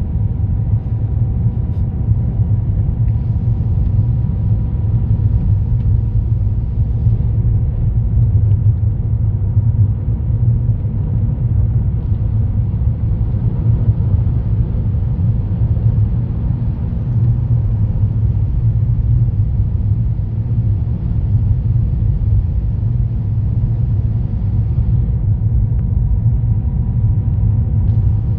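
Steady low rumble of a car's tyres and engine heard from inside the cabin while driving on a snow-covered road, with a faint steady whine above it.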